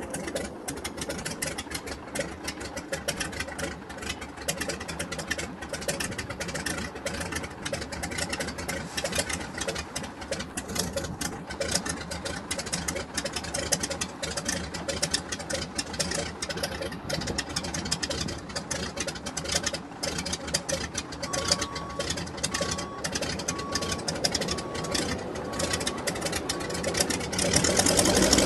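Zlin Z-37 Čmelák's nine-cylinder radial engine idling with a steady knocking beat, then speeding up near the end. A faint beeper sounds about once a second for several seconds in the latter part, typical of a loader reversing away from the aircraft.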